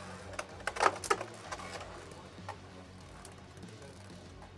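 Two Beyblade X spinning tops knocking against each other and the clear plastic Hasbro Xtreme Stadium: a quick cluster of sharp clicks about a second in, then a few lighter scattered ticks.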